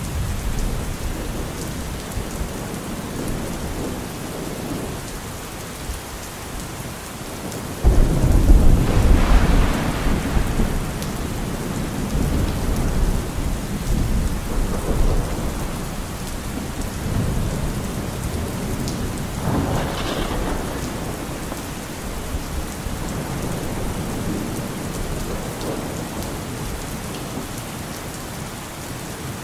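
Steady rain with thunder: a sudden loud clap about eight seconds in that rumbles on for a couple of seconds, and a second, sharper crack about twenty seconds in.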